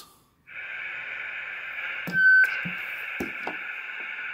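Royce I-600 23-channel CB radio's speaker hissing with static as it picks up a transmission from a nearby handheld. About two seconds in a short, loud, high squeal cuts in: feedback between the handheld's microphone and the CB's speaker, held too close. A few light clicks follow.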